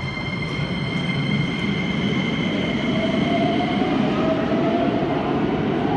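Electric commuter train running into an underground station platform, its rumble of wheels and motors growing louder. High steady squealing tones fade out about four seconds in, and a rising whine comes in during the second half.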